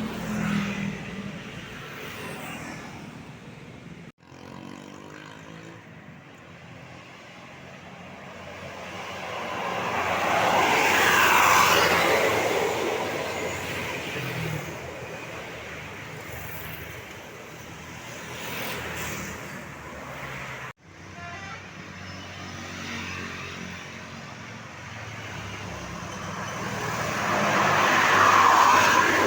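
Road traffic: vehicles driving past, the noise swelling to a peak about eleven seconds in and again near the end, then fading. The sound breaks off abruptly twice.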